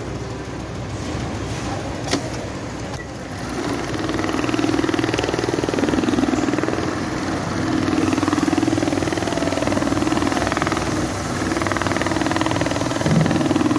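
RAMBO RM-342CPV cap visor stitching machines running. From about three and a half seconds in, a machine stitches at speed with a fast, steady needle rhythm, with brief breaks near the end.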